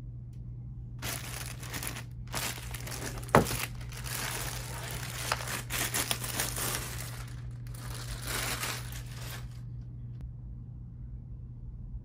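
Clear plastic bag crinkling as it is pulled off a boxed microphone, in bursts from about a second in until near the end, with one sharp snap about three and a half seconds in. A steady low hum runs underneath.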